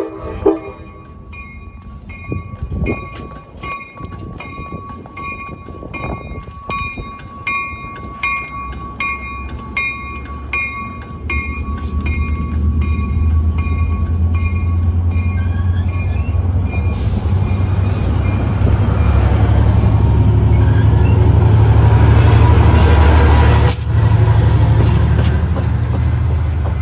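A bell rings steadily, about twice a second, then fades out as a Trinity Railway Express EMD F59PH diesel locomotive's engine throttles up. The low engine rumble builds and grows loud as the train pulls out of the station.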